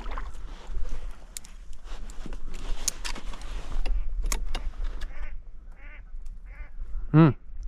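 Mallards quacking, a run of short quacks in the second half and one louder quack near the end, over the rustle and scrape of cattail reeds brushing along the kayak as it is paddled through.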